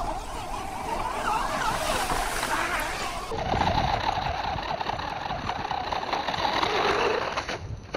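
Tamiya Grasshopper RC buggy running: the electric motor and gears whine, rising and falling in pitch with the throttle, over tyre noise. The sound changes about three seconds in, as the buggy runs on sand.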